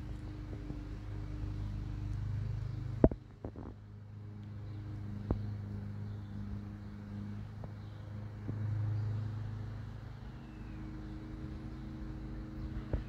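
Steady low hum of a running motor vehicle engine, with a few sharp clicks over it; the loudest click comes about three seconds in.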